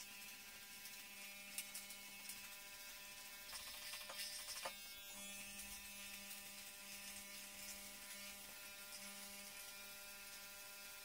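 Remington HC2001 corded electric hair clippers running with a steady buzz as they cut hair, with a brief crackle about four seconds in.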